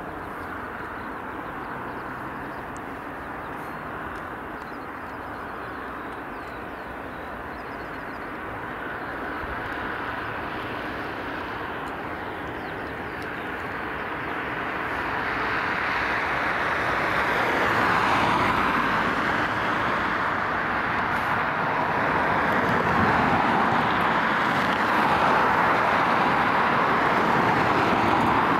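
Twin GE90 turbofans of a Boeing 777-300ER at taxi power: a steady jet engine noise that grows much louder from about halfway through as the airliner taxis nearer.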